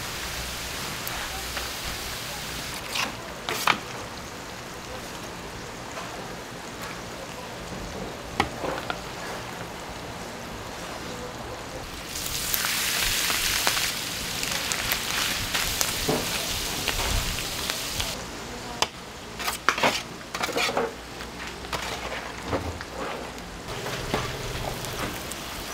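Pork offal sizzling on a large iron griddle, with scattered sharp clicks and scrapes of utensils on the metal. The sizzle swells louder for several seconds about halfway through.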